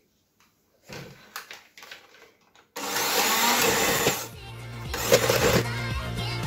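Handheld electric mixer switched on about three seconds in, a steady motor hum as its beaters churn through blocks of cream cheese in a plastic bowl. A few light handling knocks come before it starts.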